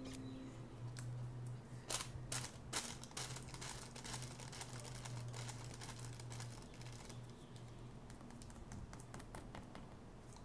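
Faint handling sounds of fingers squeezing and holding a foam toast-shaped squishy toy: scattered light clicks and rustles, with a cluster of sharper clicks about two to three seconds in, over a low steady hum.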